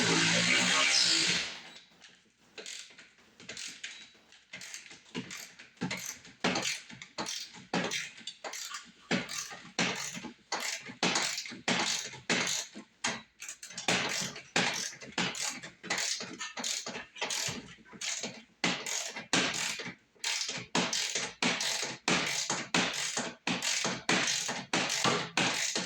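Ratchet clicking in repeated strokes, about two a second, as machine screws are driven into the snowblower. A power tool runs briefly at the start and stops about a second and a half in.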